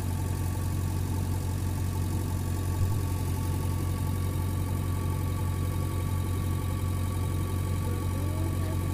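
JCB backhoe loader's diesel engine running steadily at idle, a deep even hum, with one brief knock about three seconds in.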